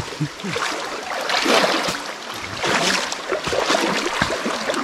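Shallow creek water sloshing and splashing as someone moves through it, in uneven swells.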